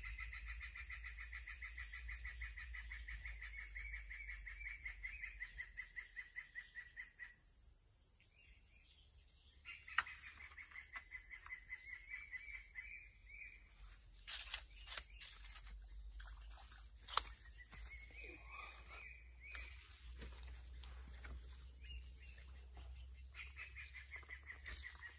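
A wild creature's pulsed, high trill repeating in bouts of a few seconds, the first the longest. A few sharp clicks and knocks are heard near the middle.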